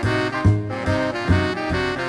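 Instrumental intro music with a steady beat.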